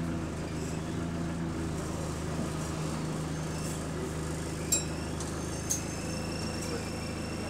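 Bus engine running with a steady low drone, heard from inside the passenger saloon. Two short sharp clinks come about a second apart near the middle.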